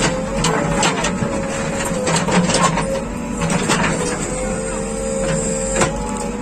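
JCB 3DX backhoe loader running at work, its engine droning steadily under a slightly wavering hydraulic whine, with scattered sharp clanks and knocks.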